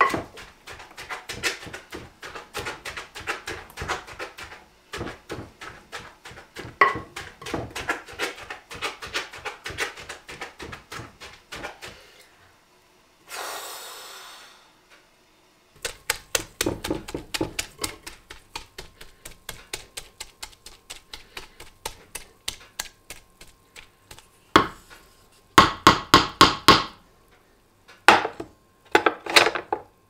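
Wooden tamper pounding shredded cabbage down in a stoneware crock: quick, repeated thuds, several a second, packing the cabbage to draw out its juice for sauerkraut. The pounding stops for a few seconds near the middle, then resumes and comes in short bursts toward the end.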